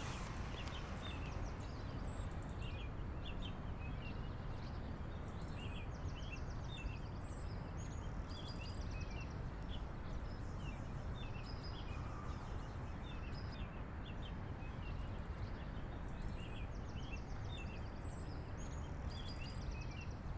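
Outdoor rural ambience: a steady background hiss with many small birds chirping and twittering throughout, plus short high buzzy trills now and then.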